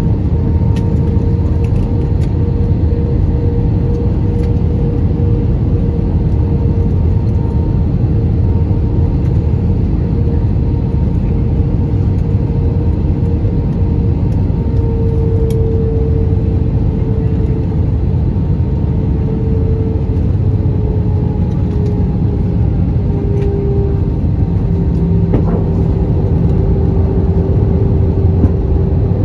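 Airbus A320 cabin noise heard from a wing seat during descent: the steady rush of jet engines and airflow. A humming tone runs through it and drops slightly in pitch past the middle.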